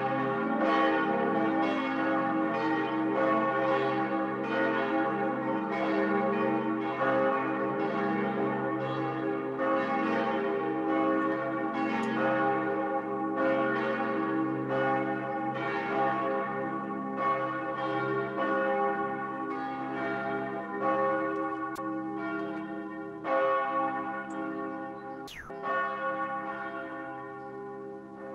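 Church bells of the Königin-Luise-Kirche pealing together, strokes roughly once a second with their tones ringing on and overlapping: the ringing-in before a Sunday service.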